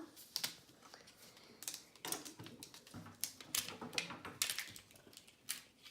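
Hardened PLA plastic drawn with a 3D pen being peeled off paper: irregular sharp clicks and crackles.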